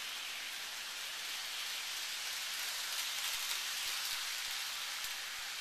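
Toy electric train running on its oval track, a steady hissing rattle that swells for a couple of seconds in the middle, with a few faint clicks, as the train passes closest.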